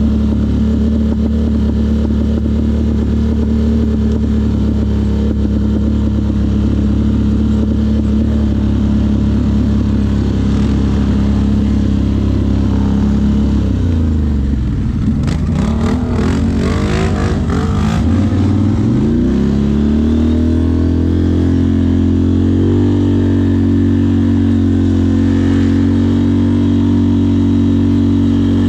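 ATV engine running steadily under way. About halfway through the revs drop sharply, with some clattering, then climb back up and settle at a steady pace.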